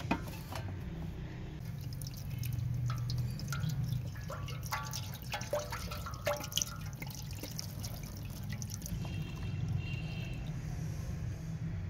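A knock as a rusted shovel blade is set into a plastic tub, then liquid poured in a thin stream over the blade, splashing and dripping as it pools in the tub. A steady low hum runs underneath.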